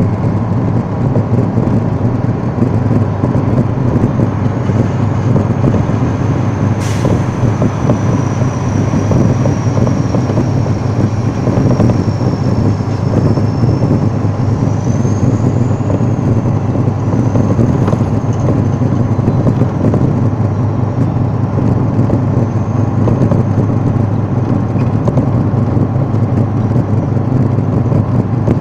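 Steady low rumble of engine and road noise heard from inside a moving vehicle. A faint high whine wavers through much of it, and there is a single sharp click about seven seconds in.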